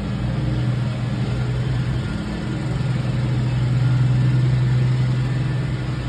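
A steady low mechanical hum with a noisy hiss over it, a little louder around the middle.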